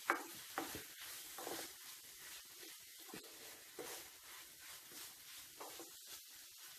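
Wooden spatula stirring onion-tomato masala in a pan, with a few soft scrapes and taps against the pan over a faint sizzle.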